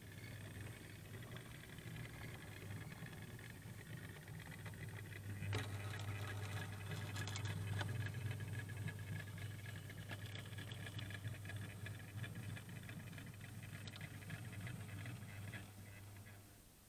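EM gauge model train running along its track, heard from a camera riding on it: a steady electric motor hum with wheel rattle and a few sharp clicks over the rails. The sound grows somewhat louder about five seconds in and cuts off near the end.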